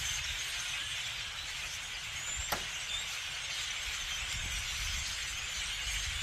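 A large flock of blackbirds calling all at once, a dense, steady chatter of many overlapping high chirps and whistles. A single sharp click comes about two and a half seconds in.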